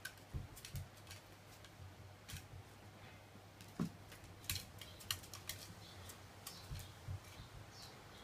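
Scattered light clicks and scratchy taps at an irregular pace, a pet's claws on the chair and floor as it paws after a snack.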